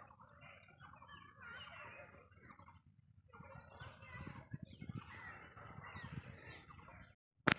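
Faint bird calls in the background. Near the end the sound drops out briefly and breaks off with a sharp click.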